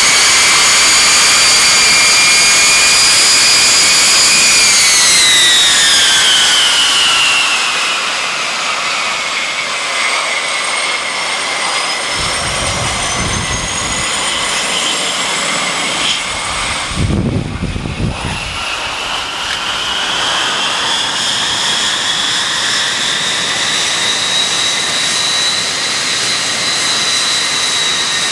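Pratt & Whitney TF33 (JT3D) turbofans of a Boeing 707-based VC-137C whining loudly as the jet taxis. The high whine falls in pitch about five seconds in and rises again in the second half, with a low rumble near the middle.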